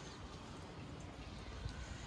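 Faint footsteps on pavement over a low, uneven outdoor rumble, with a few light ticks.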